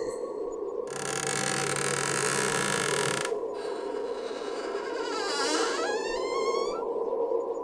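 Layered horror sound effect: a steady droning rumble under swells of hiss, with an eerie tone that dips and then sweeps sharply upward about five to seven seconds in.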